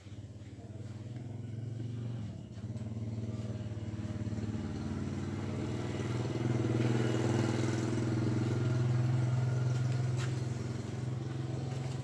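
A small engine running steadily with a low, even hum that swells louder in the middle and eases off toward the end.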